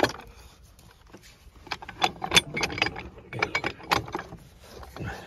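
Steel parts of a track pin press (heavy frame and threaded tie rods) clinking and knocking against each other as they are handled into place: a sharp knock at the start, then two quick runs of metal clinks about two and four seconds in.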